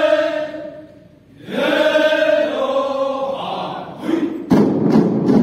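A group of performers chanting in unison, holding two long notes one after the other. Near the end a louder rhythmic beating begins, about three strikes a second, under a dense mass of voices.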